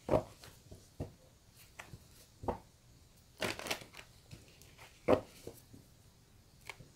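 A deck of oracle cards being shuffled and handled by hand: a series of separate sharp card slaps and taps, the loudest near the start and about five seconds in, with a brief rustling shuffle around three and a half seconds.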